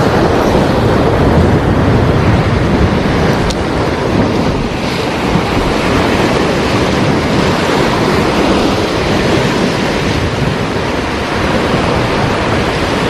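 Heavy sea surf from a big high-tide swell breaking against the shore, a loud steady wash of waves with wind on the microphone.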